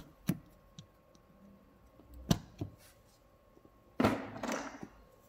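Pliers gripping and working at a screw stuck in a knobby ATV tyre's tread: a few faint clicks and knocks, the sharpest about two seconds in, then a brief rustle of handling about four seconds in.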